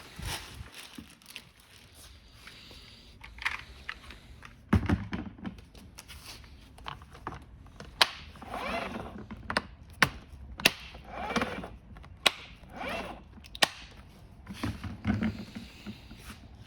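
Plastic parts of an electric ride-on toy car being handled and fitted: a series of sharp clicks and knocks, with rustling and scraping between them.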